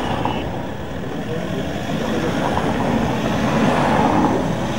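Road traffic: a convoy of cars and SUVs driving past on a city street, a steady rush of engine and tyre noise that swells a little about three seconds in as a vehicle passes close.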